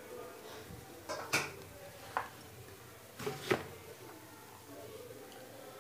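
A handful of short, light clatters of metal pots and kitchen utensils being handled, spread unevenly over a few seconds, with two louder knocks among them.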